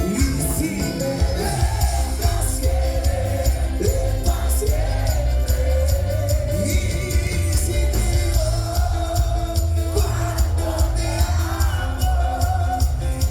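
Live band music with a heavy bass and a steady beat, a wavering melody line carried over it.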